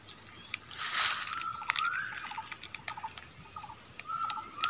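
Dry twigs and leaf litter crackling and snapping as someone pushes through brush, loudest in a rustling burst about a second in. A bird calls twice, each call a short level note that slides upward.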